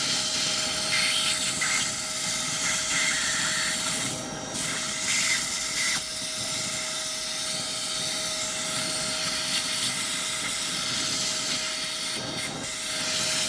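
Cordless handheld vacuum running steadily: a rushing hiss of air over a steady motor whine.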